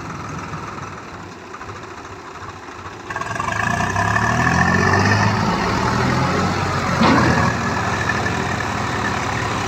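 Swaraj 735 FE tractor's three-cylinder diesel engine idling, then revved hard about three seconds in as the tractor pulls its loaded trailer through river water, with water churning around the wheels. A single sharp knock about seven seconds in.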